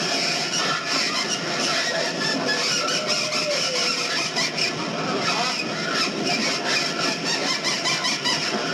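Recorded vehicle sound effect: a steady, noisy engine rumble with scattered clicks and a faint squeal about three to four seconds in.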